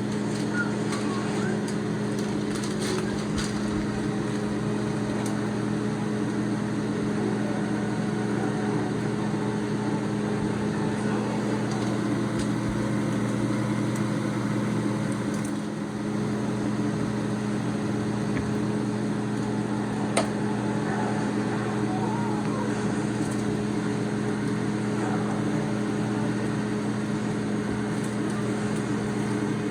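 A steady machine hum, even in pitch, with a single sharp click about twenty seconds in.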